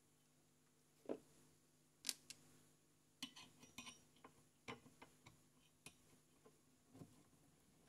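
Scattered light clicks and taps of tools and small parts being handled on a vintage Unitra AT9100 receiver while its power amplifier block is being taken out, the sharpest about a second and two seconds in.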